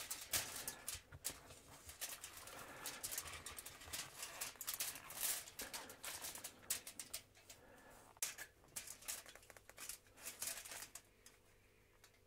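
Faint handling sounds: leather work gloves and pliers rustling and crinkling against aluminium foil as a softened plastic strip is pressed and held around the pliers' jaws to shape it. The rustling dies away about a second before the end.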